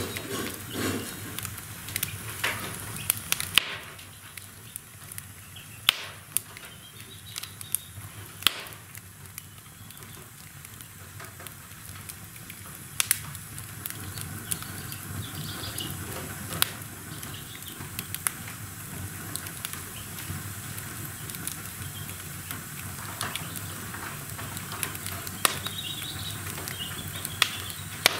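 Logs burning in an open wood-burning fireplace: a steady low rush of flame with sharp crackles and pops scattered irregularly throughout.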